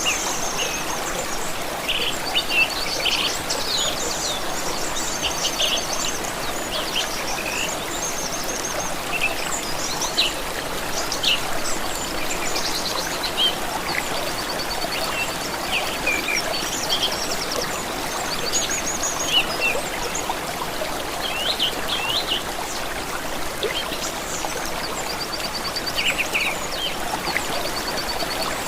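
Water running steadily in a stream, with many small birds chirping and trilling over it.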